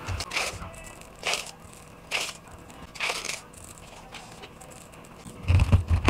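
Crushed ceramic tile powder being spooned from a plastic cup into a copper tube: a short gritty scrape about once a second, four times. Near the end, a quick run of dull knocks as the filled tube is tapped to settle the powder.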